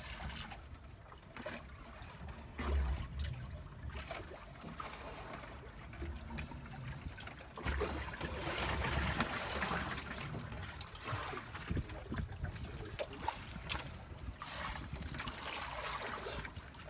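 Water trickling and dripping while a wet porcupinefish is handled over a plastic crate. There are scattered light knocks throughout, under a low rumble, and the water noise swells for a couple of seconds near the middle.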